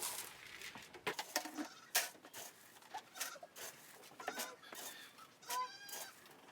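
Goat feed being scooped and poured into a container: a run of short rattles and clicks. Two brief animal calls come in, a little before and after the middle of the second half.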